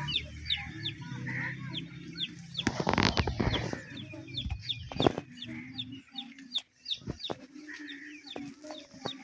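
Chickens clucking, with rapid high falling chirps throughout. A low hum runs under the first six seconds, and a loud rustling clatter comes about three seconds in.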